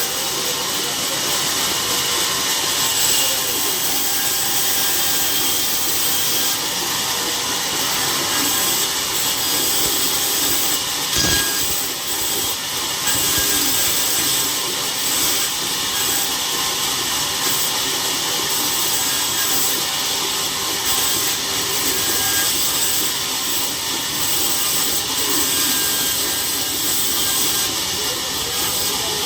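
Saw cutting through a log, a steady unbroken noise, with one sharp knock about eleven seconds in.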